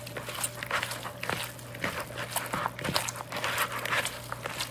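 Hands squeezing and mixing raw ground turkey with chopped onion in a plastic bowl: a run of irregular wet squelches and squishes.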